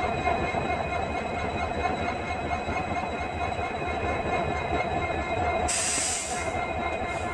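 WDP4D diesel locomotive's EMD two-stroke V16 engine humming steadily. A brief hiss of air cuts in near the end.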